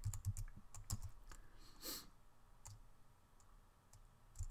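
Computer keyboard keys clicking as the rest of a terminal command is typed and entered, a quick run of keystrokes in the first second and a half. A short soft hiss follows around two seconds in, then near silence until keystrokes start again at the very end.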